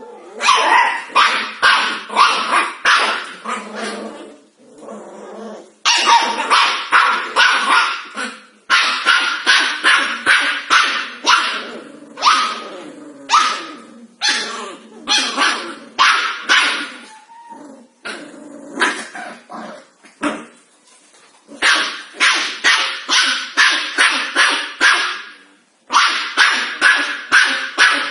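Corgi puppies barking in rapid runs of short yaps, about three a second, with brief pauses between runs.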